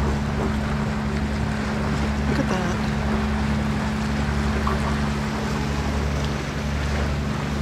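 Diesel engine of a 54-foot Cheoy Lee trawler running with a steady low hum under way, over wind and water rushing past the hull.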